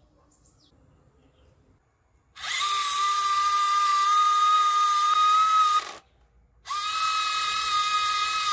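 Small electric motor whining steadily at one high pitch, in two runs of about three seconds each with a short pause between, the first starting about two seconds in.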